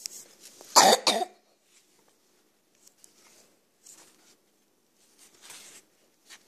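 A person coughs once, loudly, about a second in, followed by a few soft rustles of sketchbook pages being handled and turned.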